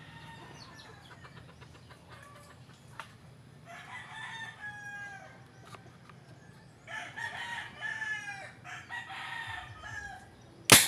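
Roosters crowing several times, then a single loud rifle shot about a second before the end, from the rifle being test-fired.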